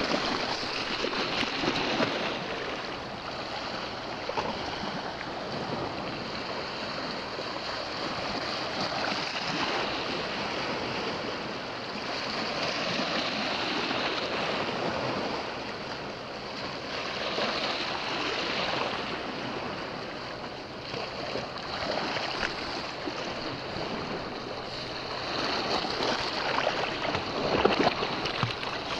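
Small sea waves washing and foaming over shore rocks close by, swelling and easing every few seconds, with a few sharper splashes near the end.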